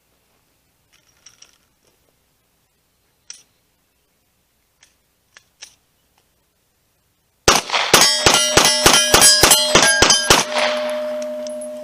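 Glock 48 9mm pistol fired in a fast string of about a dozen shots over three seconds, after a few faint handling clicks. A metallic ringing carries on steadily after the last shot.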